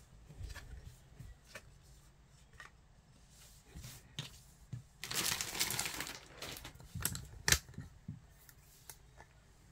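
Hands rubbing and smoothing a cotton T-shirt: fabric rustling and swishing, loudest for about a second and a half midway, with scattered light taps and one sharp click.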